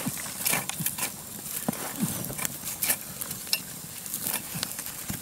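Machete chopping at wood on the ground: a string of sharp, irregularly spaced knocks, about ten in five seconds.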